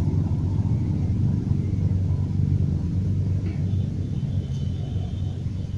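A steady low rumble with no clear pitch. A faint high thin tone comes in for a couple of seconds near the end.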